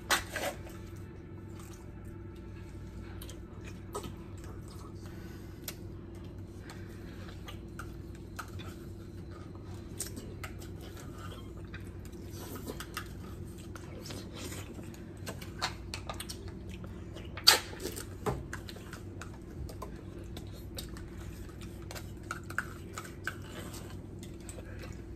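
Jell-O cups being eaten fast with plastic spoons: scattered light clicks and taps of spoons against plastic cups, lids being peeled, and soft slurping and chewing. One sharp click, the loudest sound, comes about two-thirds of the way through.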